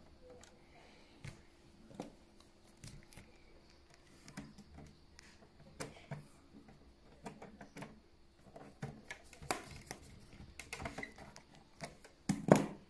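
Irregular light clicks and taps of a screwdriver and the PlayStation 4 Pro's plastic casing parts being handled during reassembly, with a louder knock near the end.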